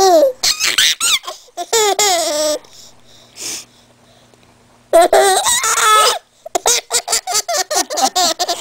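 Ten-month-old baby laughing: a few laughs and a long drawn-out laugh, a pause, another long loud laugh about five seconds in, then a quick run of short laughs.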